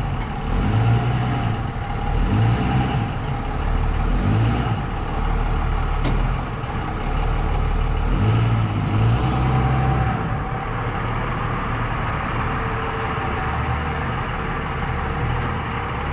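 Pickup truck engine running as the truck moves across the parking lot, a steady low rumble that swells and eases every second or two.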